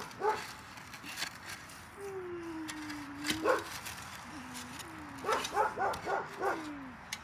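A dog whining: one long drawn-out whine that slowly drops in pitch, then shorter whines and a quick run of short whimpers near the end. A few sharp crunches of dirt clods being broken up are heard in between.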